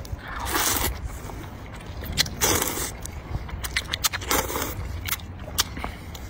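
A man slurping rice noodles from a bowl of soup in three long slurps about two seconds apart, with short clicking chewing sounds in between.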